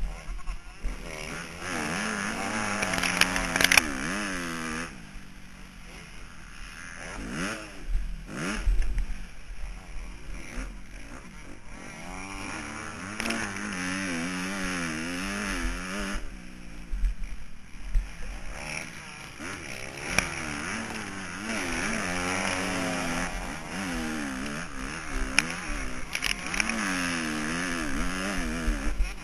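Motocross bike engine heard through a helmet-mounted camera, revving up and down again and again as the throttle is opened and closed around the track. It eases off briefly twice before picking up again.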